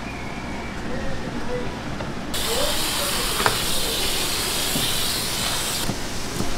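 A jet of water hissing as it sprays onto the cutting board. It starts suddenly a couple of seconds in and cuts off sharply about three and a half seconds later, with a single click partway through.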